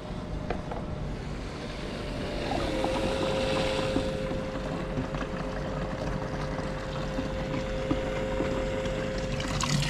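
Attwood Tsunami T-500 12-volt livewell aerator pump running with a steady hum that drops slightly in pitch about two and a half seconds in, over the rush of water it pumps into the cooler tank. The pump is primed and keeping a continuous flow through the livewell.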